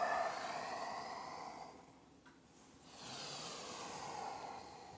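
A man's deep, audible yoga breathing: a long exhale that fades about two seconds in, a brief pause, then a long inhale from about three seconds in.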